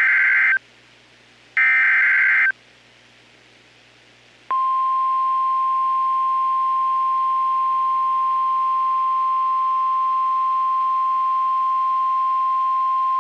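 Emergency Alert System SAME header data bursts, two short screeching bursts of rapid two-pitch warble, then after a pause a single steady NOAA Weather Radio 1050 Hz warning alarm tone from about four seconds in, held for about nine seconds. The tone signals that a new warning, here a special marine warning, is about to be read.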